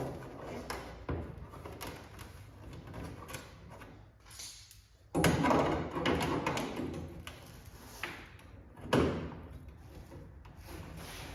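Knocks and clatter of metal bodywork, with two louder rasping bursts, one about five seconds in lasting a second or so and a shorter one about nine seconds in.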